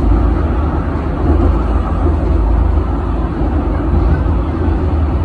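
Steady, loud rumble of the Penang Hill funicular railway car running downhill on its track, with no breaks or separate knocks.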